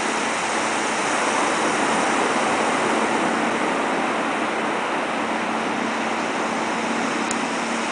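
Steady rush of water and spray from a boat running over the ocean, with a faint steady engine hum underneath.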